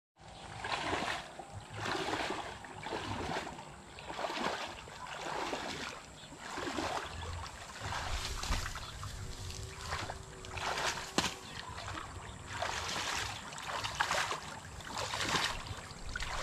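Pond water splashing and sloshing in a steady rhythm, about one splash a second.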